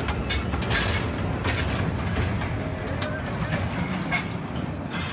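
Small mine-train locomotive and its rider cars rolling slowly along the track, a steady low rumble with scattered metallic clanks and rattles from wheels and couplings.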